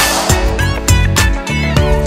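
Background music with a steady beat: bass, drum hits and sustained pitched notes.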